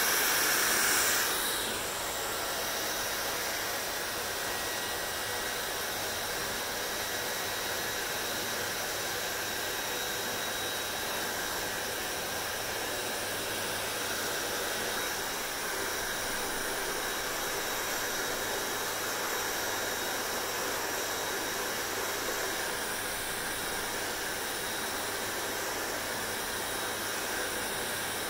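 Hair dryer running with a steady blowing whoosh and a faint whine. It is louder for the first second and a half or so, then settles to a slightly lower steady level.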